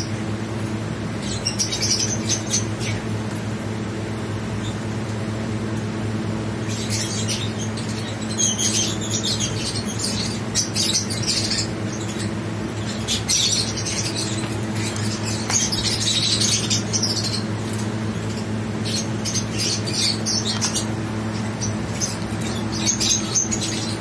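Lovebird chirping in quick, high-pitched clusters of notes, with pauses between the clusters, over a steady low hum.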